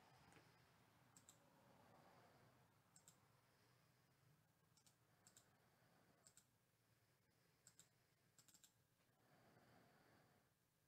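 Near silence with faint, scattered clicks every second or so, some in quick pairs.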